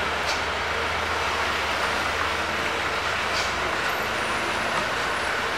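Loaded truck's engine running steadily as it drives away around a bend, with tyre and road noise and a couple of brief hisses.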